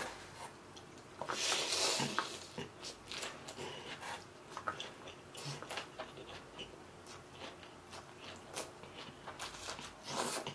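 Close-up mouth sounds of eating a large bite of rice vermicelli noodles with bean sprouts and greens: a slurp about a second in, then wet chewing and lip smacks, with another slurp of noodles near the end.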